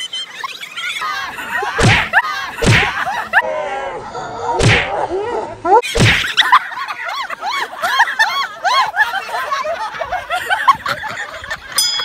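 Several people shouting and cheering over one another, with four loud sharp slaps in the first half.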